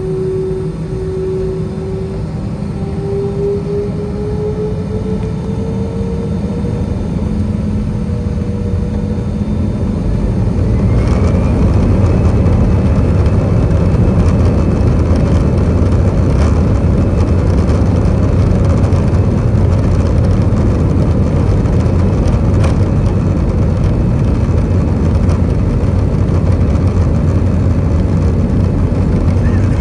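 Airbus A320 jet engines heard from inside the cabin over the wing. They run at low power with a slowly rising whine, then about a third of the way in spool up, with a whine rising to a steady high tone and the whole sound growing louder and holding: takeoff thrust being set.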